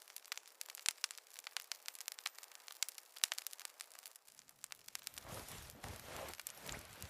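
Campfire crackling: scattered sharp pops at irregular intervals, joined from about five seconds in by a soft low rushing that swells and fades.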